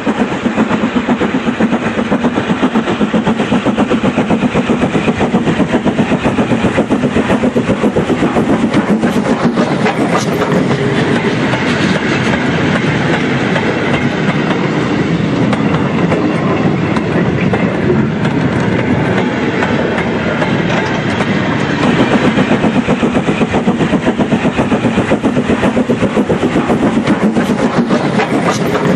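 OO gauge model goods train of mineral wagons hauled by a Bachmann LMS Crab steam locomotive, running steadily past with a rapid, even clickety-clack rhythm.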